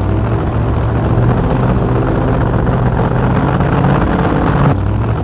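Vehicle engine sound effect dubbed over unpowered diecast Jeep models: an engine running steadily, cutting off abruptly and restarting near the end.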